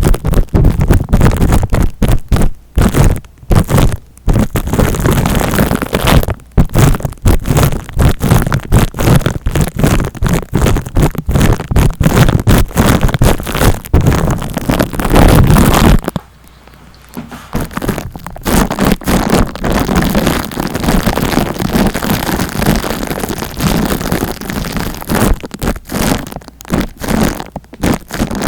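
Close-miked ASMR scratching and rustling right on the microphone: a dense, fast crackle with short breaks. About two-thirds of the way through, the deep rumble drops away and the rustling goes on lighter.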